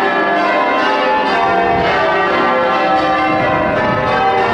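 Cathedral bells ringing, many overlapping bell tones sounding continuously.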